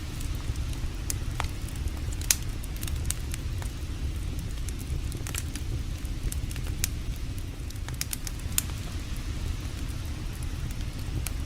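Campfire crackling, with irregular sharp pops scattered through, the loudest about two seconds in, over a steady low rumble.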